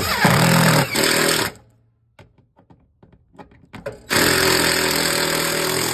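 Cordless impact driver running in two bursts, the first about a second and a half long and the second starting about four seconds in and lasting over two seconds, driving long heavy-duty screws through the back of a steel electrical meter enclosure into the wall.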